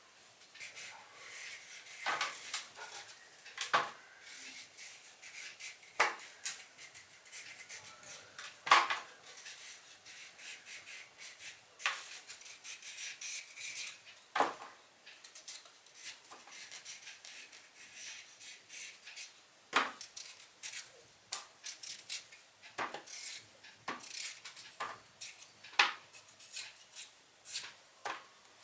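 Kitchenware being handled: irregular sharp clinks and knocks of dishes, pots and utensils, some louder than others.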